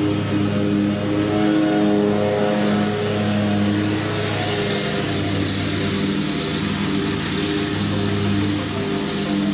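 Background music with held low notes that change every second or so.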